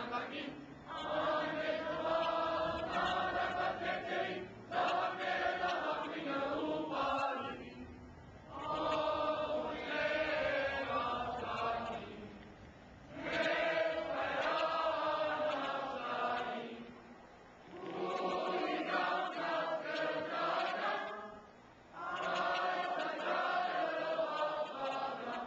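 A choir singing in phrases of about three to four seconds, with short pauses between them.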